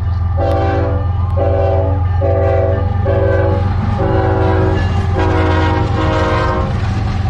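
Kansas City Southern diesel freight locomotives passing close by, sounding their multi-note air horn in a string of about seven short blasts over the steady low rumble of their engines. The horn stops shortly before the end while the engine rumble carries on.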